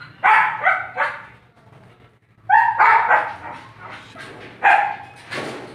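Dogs barking in sharp bursts: about eight barks in three quick clusters of two or three, during a scuffle in which a female dog fends off a husky trying to mount her.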